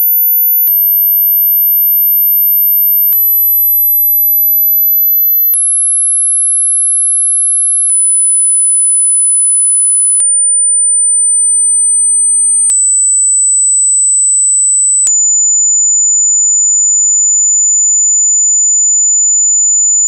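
Pure sine test tones of a hearing test, stepping down in pitch from 14 kHz through 10 kHz and lower, each step held about two and a half seconds with a faint click at each change. The last and lowest tone is held about five seconds.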